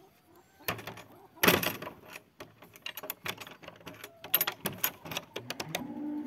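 Weathered wooden coop door and its metal latch being handled: an irregular series of knocks, clicks and rattles, the loudest about a second and a half in. Near the end a steady, drawn-out low tone sets in.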